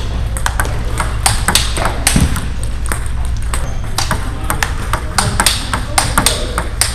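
Table tennis rally: the ball clicks sharply off the paddles and bounces on the table, a few hits a second, as forehand loops played with a Hurricane 3 Neo rubber are blocked back.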